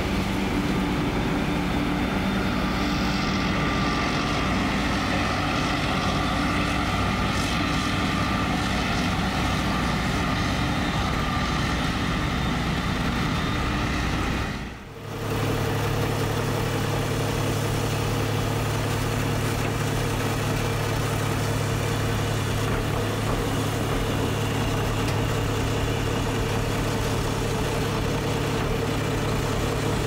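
Diesel farm machinery running: a Claas Jaguar 940 forage harvester chopping maize and blowing it into a tractor-drawn silage wagon. After a brief drop about halfway, a tractor's diesel engine runs with a steady, constant note while its tipping trailer unloads chopped maize into a silage bagger.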